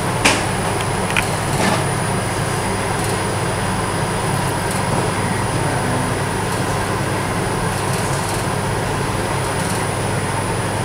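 Steady background machine hum with hiss, unchanging throughout; a few light clicks in the first two seconds.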